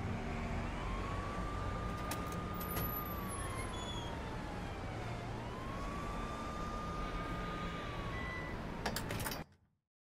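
Emergency vehicle siren wailing over steady city street noise. Its pitch rises, holds, then slides slowly down, twice over, with a few sharp clicks. The sound cuts off suddenly near the end.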